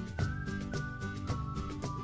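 Background music with a steady, quick beat and a high melody line over sustained lower notes.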